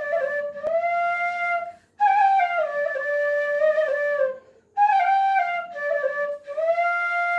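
Bansuri bamboo flute playing a solo tune. Its phrases step down in pitch and are broken by short breath pauses, and a long held note comes near the end.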